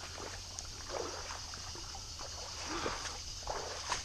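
Legs wading through swamp stream water, sloshing and swishing with each stride.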